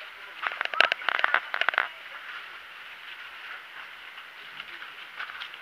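Small lead fishing sinkers clinking and rattling as they are picked out by hand: a quick run of clicks starting about half a second in and lasting over a second, followed by a faint steady hiss.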